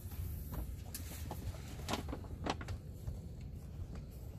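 A few sharp knocks and clunks on a small open boat, four or five spread over the few seconds, over a steady low rumble.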